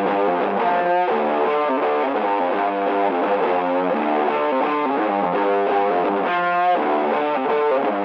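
Background music led by distorted electric guitar, playing steadily.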